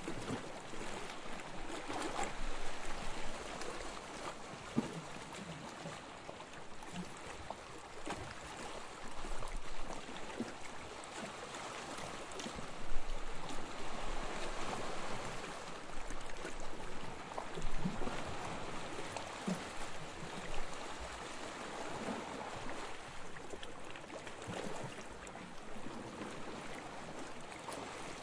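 Gentle waves washing onto a beach: a steady hiss of surf that swells and fades every few seconds, with small splashes and lapping.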